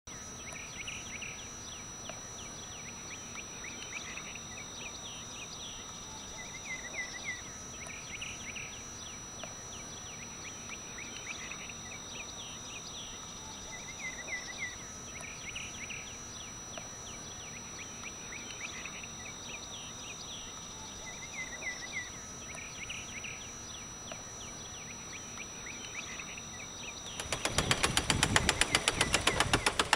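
Quiet rural outdoor ambience: birds singing short repeated phrases over a steady high-pitched hum. About three seconds before the end, a loud, fast clatter begins, the wheels of a homemade wooden roller coaster's car rattling along the track.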